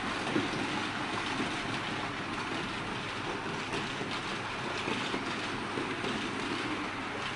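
Märklin H0 model freight train of tank wagons rolling along Märklin M-track: a steady rattling clatter of small metal wheels on the rails.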